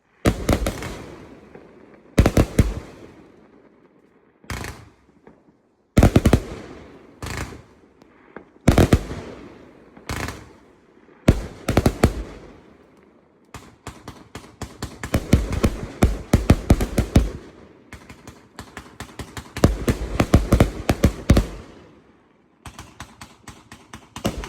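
Hallmark Dreadnought 296-shot firework compound firing: groups of sharp shots and bursts, each trailing off, with short gaps between. About halfway through it goes into a fast, near-continuous barrage that pauses briefly near the end before the shots start again.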